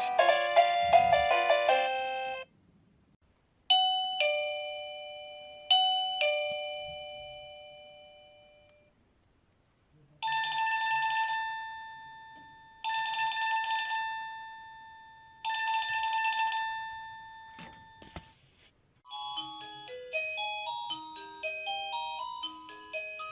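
Wireless plug-in doorbell chime receiver playing one built-in melody after another. First comes a quick electronic tune, then two chime notes that ring and fade, then three short ringtone-like bursts. After a sharp click, another tune starts.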